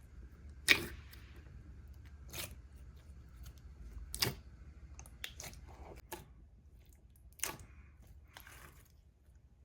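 Thick clear slime being pressed and played with by hand, giving sharp little clicking pops at irregular intervals, the loudest about three-quarters of a second in.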